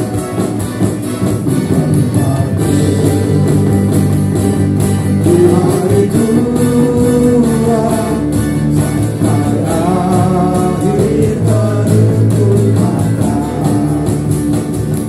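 Small live band playing: acoustic guitars, electric bass and keyboard, with a man singing into a microphone.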